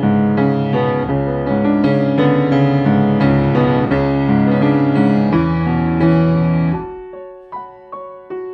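Background piano music. The fuller playing stops about seven seconds in, leaving quieter single notes that ring out and fade.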